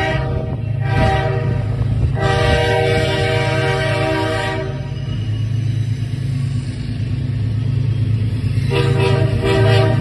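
CSX diesel locomotive sounding its multi-note air horn in blasts: one ends about a second in, a long blast runs from about two seconds to nearly five, and another starts near the end, over the steady low rumble of the diesel engine. The recording plays sped up, which raises the horn's pitch.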